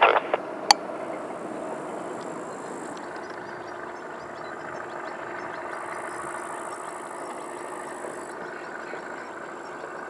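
Steady, distant jet airliner engine noise at the airfield, with a sharp click about a second in.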